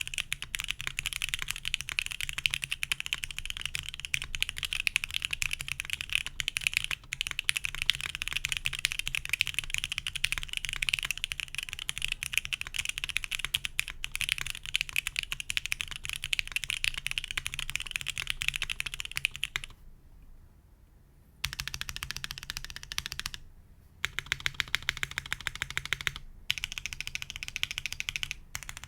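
Steady, fast typing on an Emery65 mechanical keyboard with C3 Equalz Fierce Girls switches on an undampened aluminium plate under CRP keycaps, a dense run of key clacks. About two-thirds through the typing stops for a second and a half, then resumes with a couple of brief pauses.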